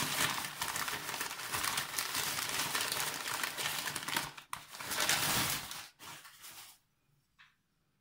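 Wrapping paper crinkling and rustling by hand as a porcelain cat figurine is unwrapped. The crackle dies away about six to seven seconds in.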